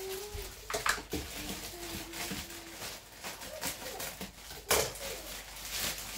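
Groceries being handled and put away: rustling with a few sharp knocks, the loudest just under five seconds in. A low steady tone sounds twice in the first three seconds.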